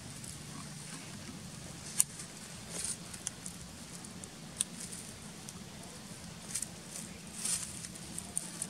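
Dry leaf litter crackling in scattered light ticks and rustles over a steady low hum, with one sharp tick about two seconds in.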